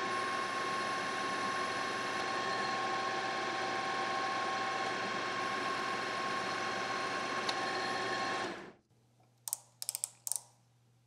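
Precision Matthews PM-1440GT metal lathe running under power with a steady whine while taking a cut on the workpiece, shutting off about eight and a half seconds in. A few sharp clicks follow near the end.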